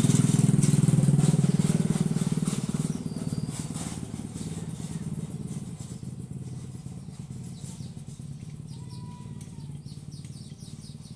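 A motor vehicle engine passing by, loudest at the start and fading away over the first five seconds, leaving a quieter low hum.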